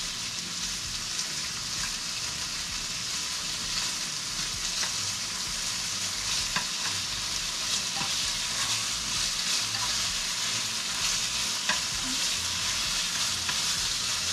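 Chicken pieces sizzling steadily as they are stir-fried and seared over high heat in a pan, with a few clicks and scrapes of the spatula against the pan.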